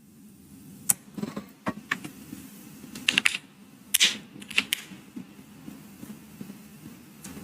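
Scattered clicks and light knocks from handling a mechanical keyboard, irregular and a second or so apart, some in quick pairs.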